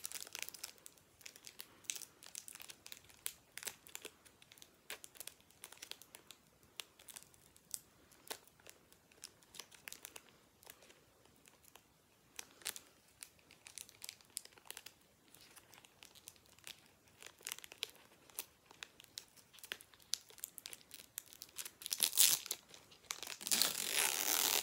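Crinkling foil Pokémon booster-pack wrapper being handled, with many small scattered crackles and clicks. A louder, longer rustle near the end.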